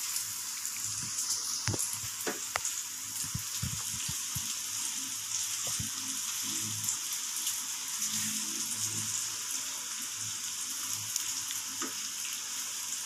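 Diced bacon with garlic and onion frying in a pan, a steady sizzle as it is stirred with a silicone spatula and cooked until crispy.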